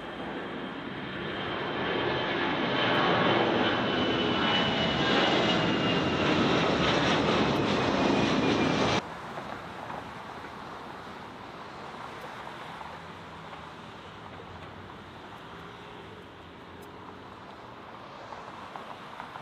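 Jet airliner's engines passing close, building to loud with a high whine that slowly falls in pitch, then cut off abruptly about nine seconds in. Quieter steady rushing noise follows.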